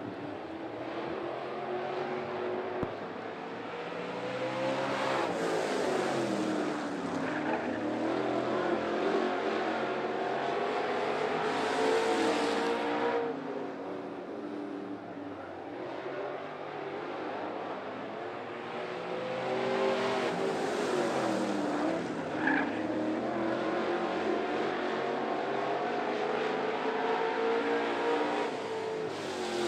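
Dirt late model race cars' V8 engines racing in a pack around a dirt oval. Twice the engine pitch falls and then climbs again, about fifteen seconds apart, as the cars lift for the turns and power out of them.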